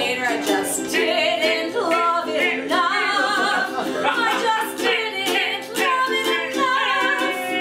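A woman singing a melody over a strummed ukulele keeping a steady rhythm.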